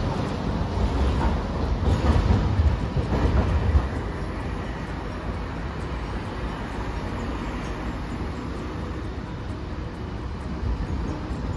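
Hiroden 800-series street tram no. 802 rolling away along street-running track. Its wheels rumble and clack over the rail joints for the first few seconds, then settle into a quieter, steady rumble as it recedes.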